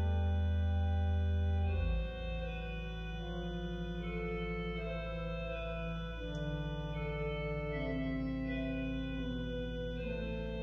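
Church organ playing slow, sustained chords. A deep pedal bass note sounds under them until about two seconds in, then drops out, leaving the softer upper chords.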